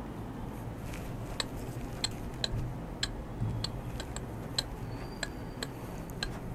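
A series of light, sharp clicks at uneven intervals, about two a second, over a low steady hum.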